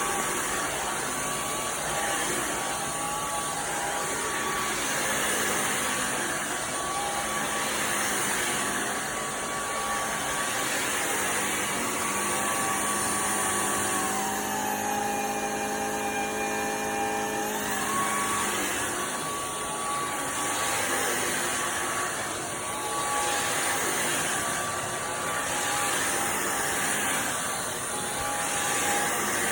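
Simplicity Go-Go cordless stick vacuum running steadily with a high motor whine, its suction noise swelling every couple of seconds as it is pushed back and forth. About halfway through, the motor pitch drops for about four seconds, then rises back to its earlier pitch.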